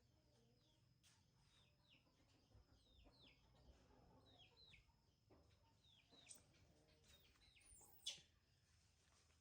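Faint bird chirps: short high calls, each falling in pitch, repeating in pairs about once a second. A short sharp sound stands out about eight seconds in.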